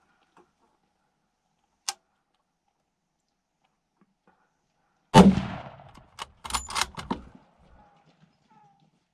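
A sharp click about two seconds in, then a loud AR-style rifle shot just past halfway with a long fading tail, followed about a second later by a quick string of about five quieter, sharper cracks, typical of rapid follow-up shots from a semi-automatic rifle.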